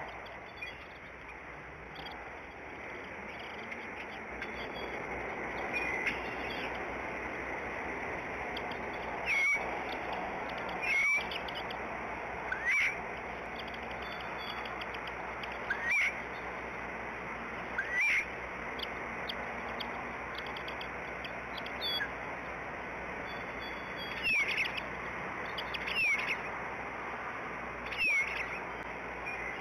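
Bald eagle chirping: short, high, falling call notes about every two seconds from roughly ten seconds in, over a steady outdoor background hiss.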